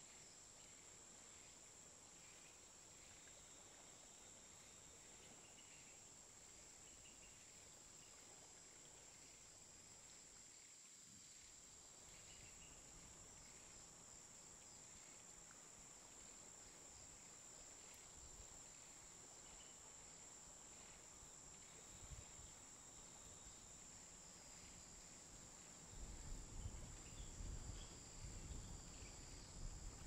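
Faint outdoor insect chorus: one steady, high-pitched trill with scattered short chirps. A low rumble comes in near the end.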